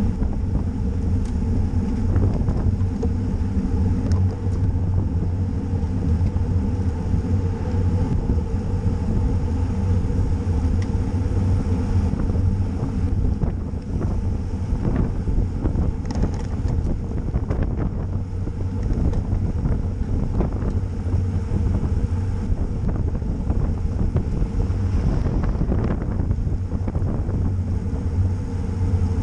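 Steady rumble of road-bike tyres on pavement with wind buffeting the camera's microphone while riding at speed.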